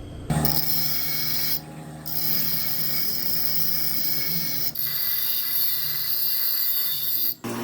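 Steel being worked with an abrasive tool: a steady rasping in three long passes, broken by short pauses.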